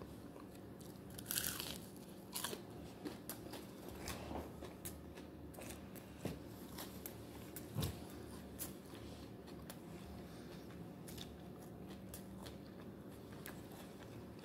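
A man chewing and biting into food close to the microphone: scattered faint crunches and mouth clicks, the loudest about eight seconds in.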